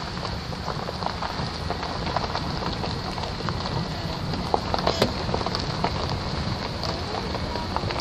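Wind rumbling on the microphone outdoors, with frequent small crackles and clicks over it.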